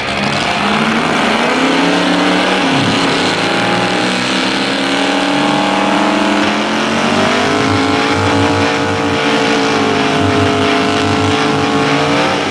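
Car engine held at high revs during a burnout, its pitch rising and falling over the hiss of the spinning rear tyres.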